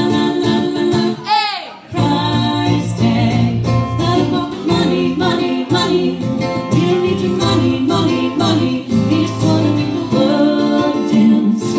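A woman singing a song into a microphone, accompanied by chords on an electronic keyboard, with a short break in the music just under two seconds in.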